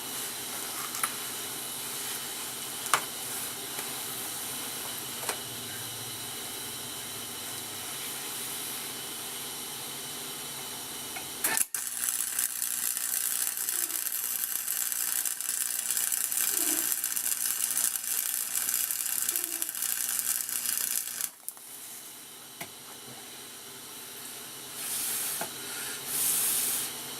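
Electric arc welding: a steady crackling sizzle of one weld bead lasting about ten seconds, stopping suddenly, then three short bursts near the end as the swing arm bushing is tacked and built up.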